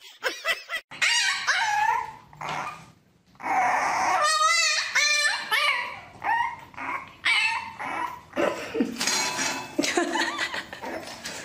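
Dogs whining and yipping in a run of short, high calls that bend up and down in pitch: first a Siberian husky, then, after a brief pause, a puppy.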